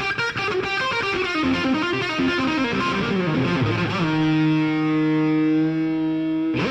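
Background music: a distorted electric guitar plays a fast run of notes, then holds one chord from about four seconds in.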